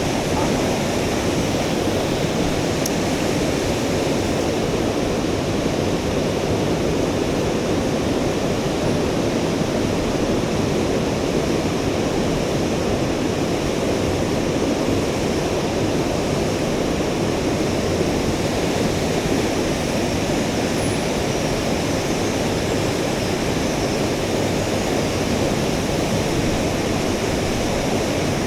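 Rushing mountain-stream water, a loud, steady, unbroken roar of current over rocks.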